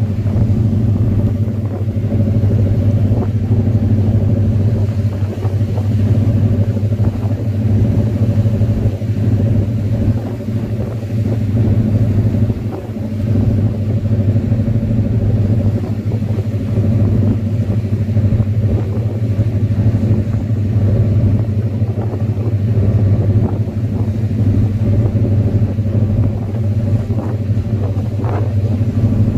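A steady, low engine drone from a moving vehicle running at constant speed, with a deep hum and fainter higher tones above it.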